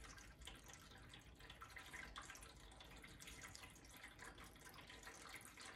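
Near silence: faint room tone with soft rustles and light ticks from fingers handling the lamp cord's wires at a metal socket cover.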